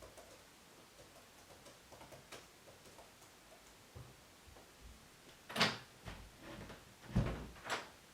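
Quiet room tone with faint small clicks, then a series of knocks and thumps in the second half, the loudest a deep thump about seven seconds in.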